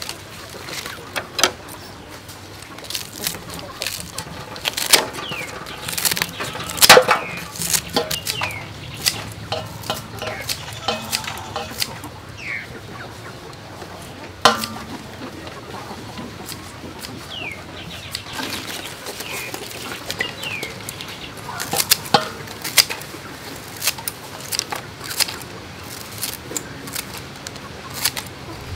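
Scissors snipping pandan leaves, scattered sharp clicks as the cut pieces drop into an aluminium bowl, with chickens clucking and short bird chirps in the background.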